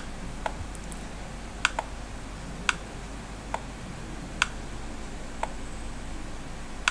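Isolated clicks from computer controls, about eight of them at irregular intervals roughly a second apart, over a low steady hum.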